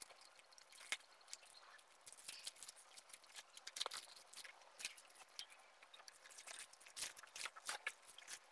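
Faint, irregular crackling and rustling of plastic packaging wrap being cut open with small scissors and pulled off a cardboard box, with a louder cluster of crackles about seven seconds in.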